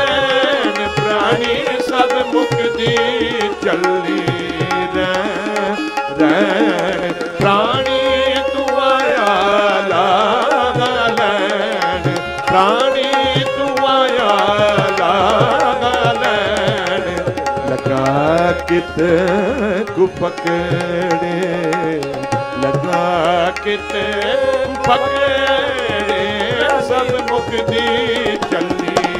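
Tabla and bowed Indian string instruments playing a Sikh shabad kirtan melody, the notes gliding and wavering.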